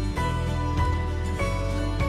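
Instrumental background music: held notes that change every half second or so over a steady bass.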